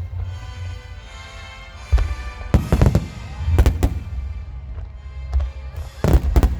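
Aerial firework shells bursting over music: a sharp bang about two seconds in, more a second or so later, and a loud cluster near the end.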